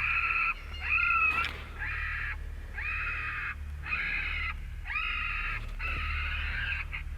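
Electronic predator caller playing a recorded adult raccoon squalling, the DS Adult Coon sound used to bring in coyotes. The squall repeats about seven times, each one half a second to a second long and about a second apart, some rising sharply at the start.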